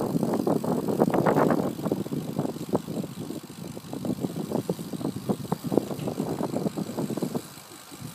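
Irregular rattling and knocking of a bicycle rolling over rough asphalt, with a rumble of road and wind noise, loudest in the first second and a half.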